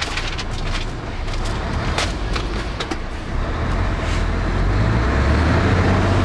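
Truck engine heard from inside the cab as the truck drives on, a low rumble that grows louder from about three seconds in as it pulls harder. A few sharp clicks in the first half.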